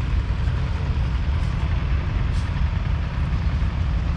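1965 Claas Columbus combine harvester's 1.8-litre four-cylinder diesel engine running steadily with a deep, even rumble.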